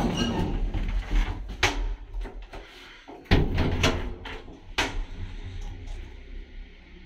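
Zremb passenger lift's metal doors being shut: a series of sharp clacks and knocks as the doors close and latch, over low rumbling handling noise. Near the end a low steady hum sets in.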